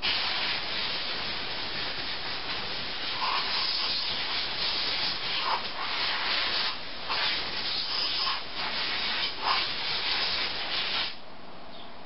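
Compressed-air blow gun blowing out carburetor parts: a loud hiss in uneven bursts that stops suddenly about eleven seconds in.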